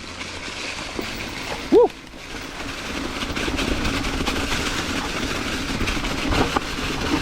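Mountain bike setting off downhill on a rocky singletrack: rushing wind and tyre noise on the ride camera, building over the first few seconds and then holding steady. About two seconds in comes a short, loud voiced call.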